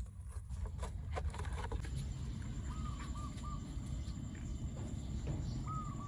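A bird calling in two short runs of about three quick, clear notes, about halfway through and again near the end, over a steady low rumble and a few clicks early on.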